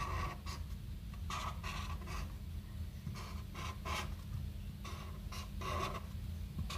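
Felt-tip whiteboard marker scratching across paper in short strokes, in quick groups of three or four with brief pauses, as small dashes and triangles are drawn. A steady low hum lies underneath.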